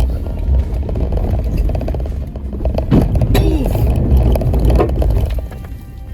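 Jeep engine running under load as the vehicle crawls over rough off-road ground, with a sharp clunk about three seconds in and further knocks and scraping from the chassis.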